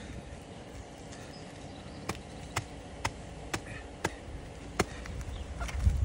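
A hand-held rock striking a husked coconut on concrete to split it open: sharp knocks, about two a second, beginning about two seconds in.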